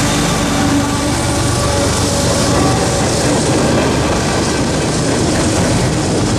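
Freight train passing at speed: the CSX GE ES44AC-H mid-train helper locomotive goes by, its engine tones fading over the first couple of seconds, then the steady rolling noise of tank cars and covered hoppers on the rails.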